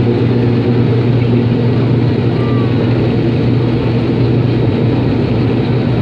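Turboprop airliner's engines and propellers at takeoff power during the takeoff roll, heard from inside the cabin: a loud, steady drone with a strong low propeller hum.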